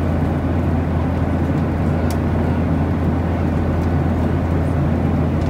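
Steady cabin noise of an airliner in flight: an unbroken low drone of engines and rushing air, with a faint steady whine above it.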